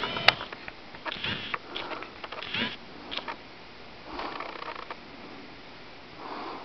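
Two cats playing on a carpeted cat tree: irregular soft scuffles and scratches of paws and claws on the carpet, in short bursts, with one sharp click just after the start.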